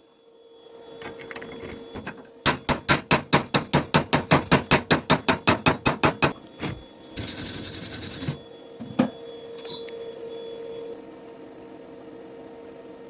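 Rapid metal tapping, about six knocks a second for some four seconds, like a chipping hammer knocking slag off a stick weld. It is followed by about a second of hissing, one sharp knock, and a steady hum underneath.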